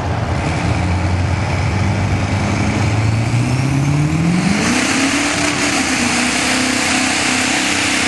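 Duramax V8 turbodiesel pulling hard under load, its pitch climbing slowly, with a faint rising whistle above it. About four and a half seconds in, the revs jump sharply and hold high as a loud hissing rush sets in.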